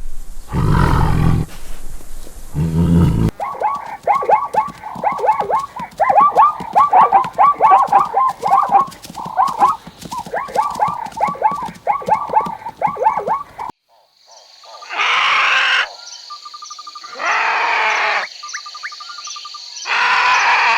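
A string of different animal calls. First a low roar-like call, then, for about ten seconds, a flock making many short calls several times a second, then three long, loud calls over a steady high tone.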